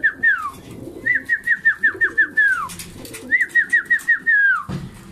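A flock of homing pigeons feeding at a grain trough, their beaks clicking on the grain and feeder, with low cooing. Over it a bird's high whistled call comes in quick runs of about eight falling notes. Each run ends in a longer downward slide and repeats about every two seconds.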